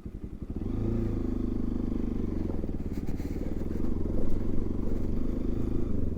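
Motorcycle engine picking up about half a second in, then running steadily under way.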